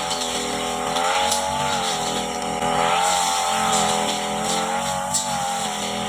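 Petrol brush cutter engine running at high revs while cutting grass, its pitch dipping and recovering every couple of seconds as the load changes, with brief crackles.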